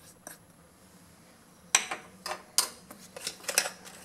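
Metal spoon tapping and scraping against a small ceramic bowl while corn flour is tipped out. One click comes just after the start, then a run of clinks and scrapes from about two seconds in as the bowl and spoon are handled and set down on the counter.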